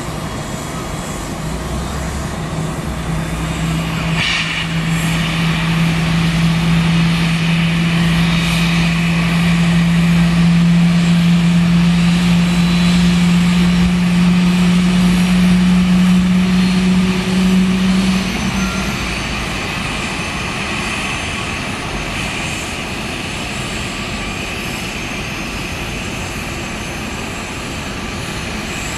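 Airbus A330-223 freighter being pushed back by its tug: a steady low drone that slowly grows louder and creeps up in pitch, then cuts off abruptly about two-thirds of the way through, leaving a steady background hum. A brief click about four seconds in.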